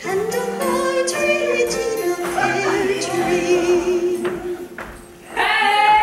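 Stage music with singing voices. Sharp percussion hits come in the first two seconds under a long, wavering held sung note; the sound dips briefly near the end before loud singing comes back in.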